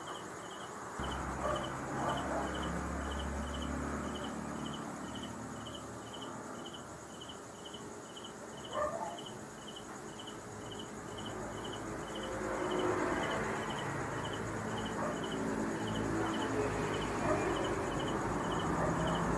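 A cricket chirping steadily, about two short high chirps a second, over faint low rumble and light handling noise.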